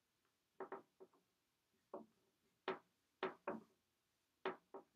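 Dry-erase marker tapping and scraping against a whiteboard while writing: a string of faint short ticks, irregularly spaced, some in quick pairs.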